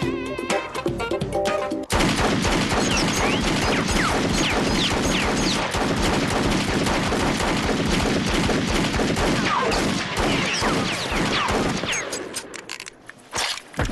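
Music for about two seconds, then a sudden, heavy fusillade of pistol gunfire from several guns, firing continuously for about ten seconds before thinning out into scattered shots near the end.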